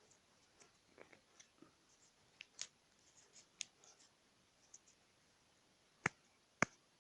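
Hands working gutted nylon paracord into a three-strand braid: faint rubbing and scattered small clicks, then two sharp clicks about half a second apart near the end.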